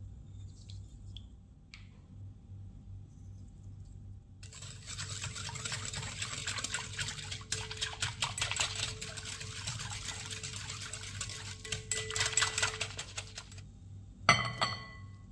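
Wire whisk beating a milk mixture in a glass bowl: about nine seconds of rapid clinking and swishing against the glass, starting a few seconds in. Near the end a bowl knocks once against the glass bowl's rim with a short ring.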